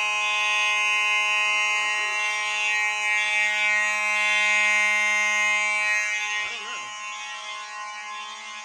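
Fire alarm horns sounding in continuous mode after a manual pull station has been pulled. A steady horn tone is layered with a higher tone that pulses a little faster than once a second, and the level drops about six seconds in.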